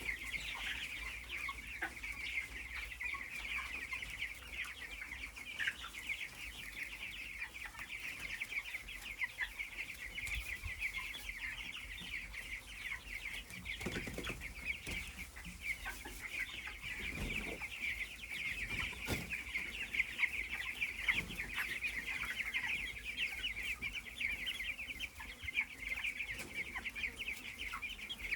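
A large flock of broiler chickens calling continuously, a dense mass of overlapping high cheeps.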